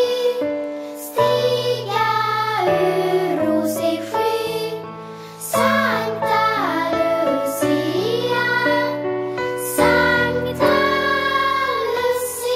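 Children singing a song over instrumental accompaniment, the melody moving over held lower notes that change in steps.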